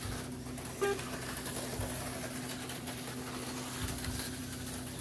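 HO-scale slot cars running laps on a plastic track, their small electric motors giving a steady whir and hiss over a constant low electrical hum, with a short squeak just under a second in and a few soft knocks.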